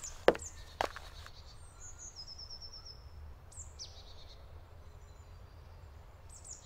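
Forest ambience with small birds calling: short high chirps and a quick trill over a steady low rumble. A few sharp clicks come in the first second.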